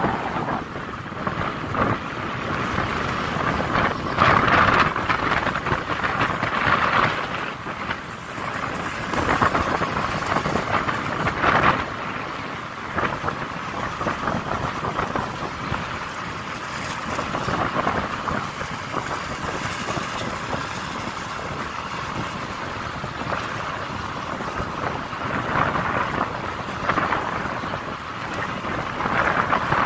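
Motorbike engine running while riding, mixed with wind noise on the microphone, swelling and easing every few seconds.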